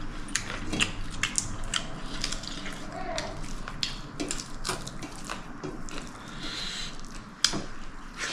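Eating sounds: many short clicks and clinks of tableware, with chewing.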